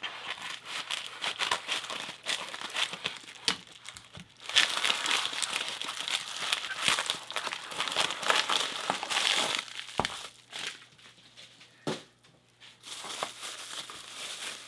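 Packing material crinkling and rustling as a padlock is unwrapped by hand, busiest from about four and a half seconds to ten seconds in, with a short lull near the end.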